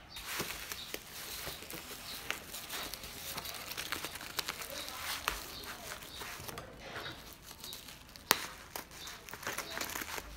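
Bubble wrap crinkling and crackling as hands handle and pull open a bubble-wrapped parcel, with many small clicks and one sharp snap about eight seconds in.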